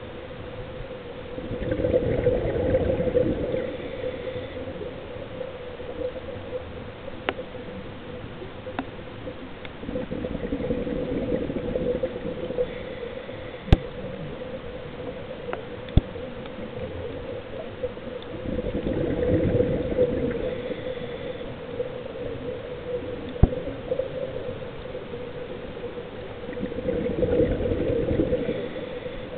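Scuba diver breathing through a regulator underwater: a bubbling exhalation swells up about every eight seconds, four times, over a steady low hum, with a few sharp clicks in between.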